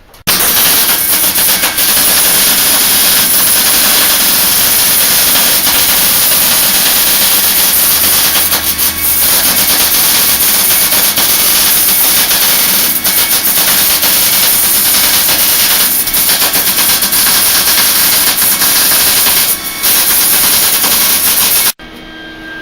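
Lincoln Electric MIG wire-feed welder arc crackling and hissing through one long continuous bead of about twenty seconds, with a brief break near the end, then cutting off abruptly.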